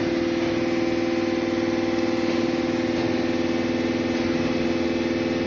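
Springfield 2-1/2 A-TR vertical universal grinder running under power, a steady hum with several even tones, its spindle stroking slowly up and down.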